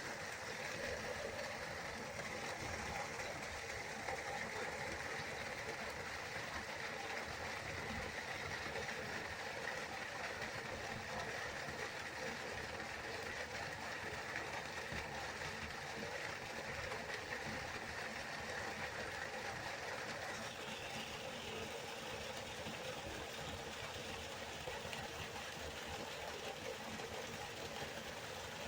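Waterfall: a steady rush of falling water, with its tone shifting slightly about two-thirds of the way through.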